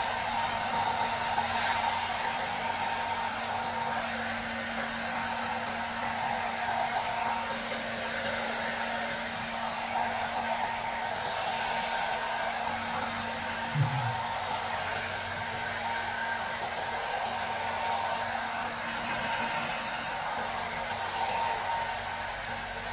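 Handheld hair dryer running steadily while drying a wet dog's fur: a steady rush of air with a constant motor hum and whine.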